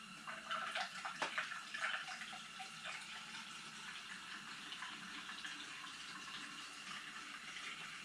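Liquid being poured or sloshed, with a few clicks and clatters in the first two seconds, then a steady pouring sound.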